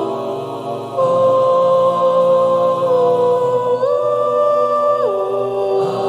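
Background music: a slow melody of long held notes, stepping to a new pitch every second or two.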